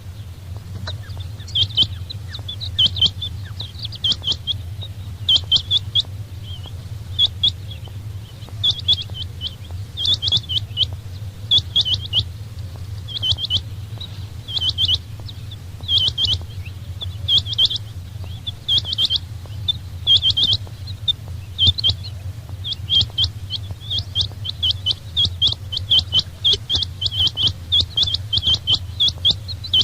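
Quail (chinga batair) calling: short, sharp high chirps repeated in quick clusters, coming more densely toward the end, over a steady low hum.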